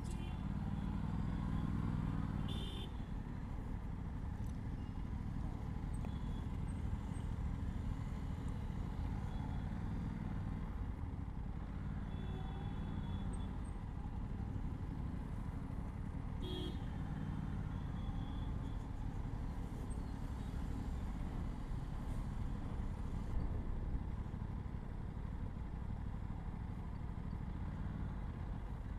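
Aprilia RS 457's 457 cc parallel-twin engine on its stock exhaust, ridden slowly through city traffic, the engine note rising and falling with the throttle every few seconds. A few short horn toots sound from the surrounding traffic.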